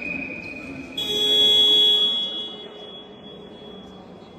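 Basketball scoreboard buzzer sounding loudly for about a second, starting about a second in, then dying away in the hall. Just before it, a referee's whistle blast trails off.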